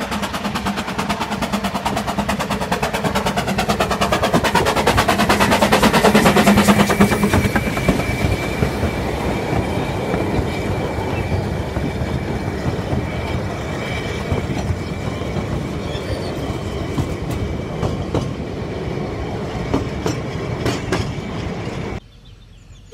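Narrow-gauge steam train running in close by: locomotive and carriages rumbling, with the rapid clicking of wheels on the rails. It grows louder over the first several seconds as it comes near, holds steady while the carriages pass, then drops away sharply near the end.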